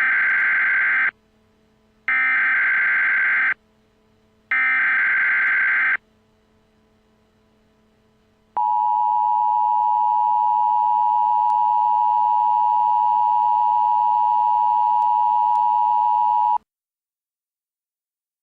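Emergency Alert System tones: three short bursts of the SAME digital header, each about a second and a half and a second apart, then the two-tone EAS attention signal held steadily for about eight seconds before cutting off suddenly.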